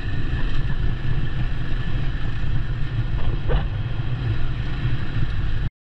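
Dual-sport motorcycle running on a trail, its engine mixed with heavy wind rumble on the camera microphone, cutting off abruptly near the end.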